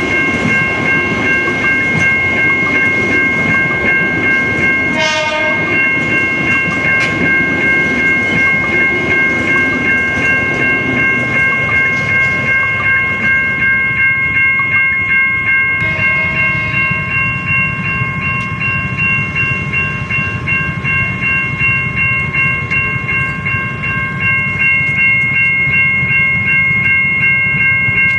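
Electronic level-crossing warning bell at a Siemens railway crossing, ringing rapidly and without pause over the rumble and clatter of a passing train. Brief horn-like tones sound about five seconds in and again around sixteen seconds in, and the low rumble grows heavier from there.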